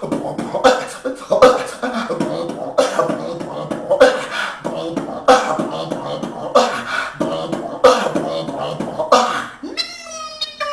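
Human beatboxing: a mouth-made drum beat with a sharp hit about every second and a quarter over a busier pattern between. Near the end the beat stops and gives way to a held, pitched vocal tone that rises slightly and then starts to slide down.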